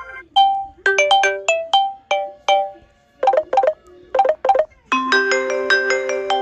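Samsung Galaxy S7 Edge ringtone melodies: a quick run of short bright notes, then two bursts of rapid trilled notes, then held chords starting about five seconds in.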